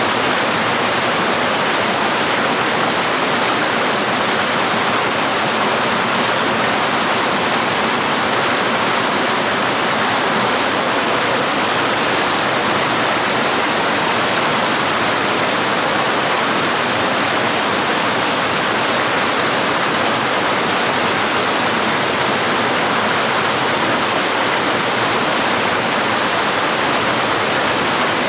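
Waterfall and stream water pouring steadily, a constant even rush with no breaks.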